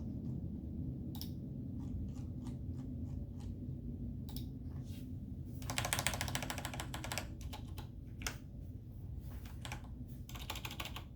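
Typing on a computer keyboard, with scattered single keystrokes at first, then a quick run of typing about halfway through and another near the end.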